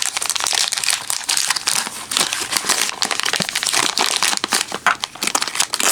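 Packaging crinkling and crackling in close, continuous handling as the mount is unwrapped by hand.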